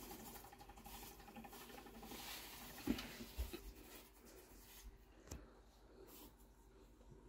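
Faint scratchy rustling with a few soft knocks, the loudest about three seconds in and another a little past five seconds.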